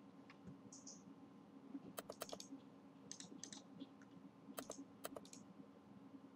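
Faint computer mouse clicks in small clusters over a low, steady hum: a few near the start of the second second, softer ones around the middle, and two more near the end. The clicks come from browsing folders in a file dialog.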